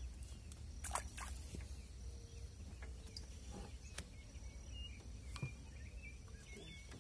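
Outdoor ambience on open water: a low wind rumble on the microphone, with a few small handling knocks, a brief louder noise about a second in, and faint high chirps.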